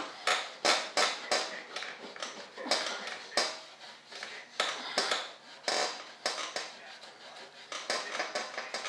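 A composite mold being polished by hand: a series of short rubbing and scrubbing strokes over its surface, at an irregular pace of about two a second.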